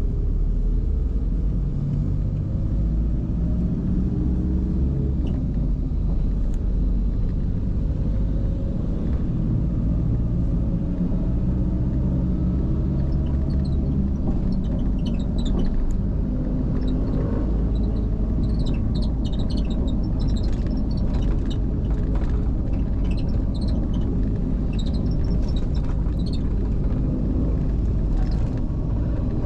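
Engine and road rumble heard from inside a moving road vehicle, the engine note rising and falling as it speeds up and slows in traffic. From about halfway, scattered short high-pitched chirps and ticks sound over the rumble.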